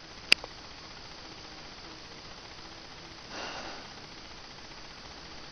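Faint steady hiss and hum, broken by one sharp click about a third of a second in and a brief soft breathy rustle about three and a half seconds in.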